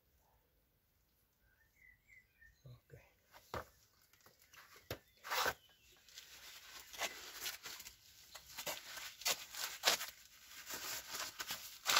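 Rustling and scattered sharp clicks of hands handling work gear, starting about three seconds in and getting busier toward the end, as the plastic lid is pressed back onto a tin of grease. A bird chirps faintly a couple of times about two seconds in.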